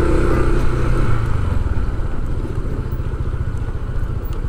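A small vehicle engine running close by, its note easing after about a second, over a steady rush of road noise.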